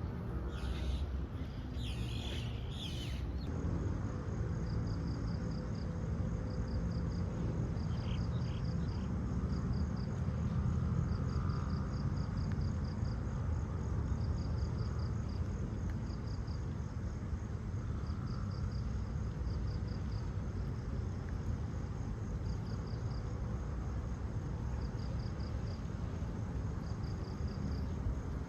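Steady rain noise with insects chirping in short pulsed trills that repeat every second or two over a thin, steady high buzz.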